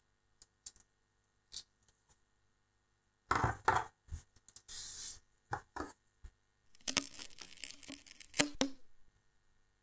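Handling noise from a small FPV drone and screwdriver on a table: a few faint ticks, then a cluster of knocks and clatter about three seconds in as the drone is set down. A run of small clicks and rubbing follows near the end as fingers work at the drone's front camera.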